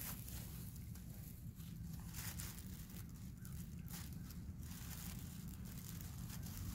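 Faint, irregular rustling of a stunt kite's sail and spars being handled as a spar is fitted into the wing, over a steady low rumble.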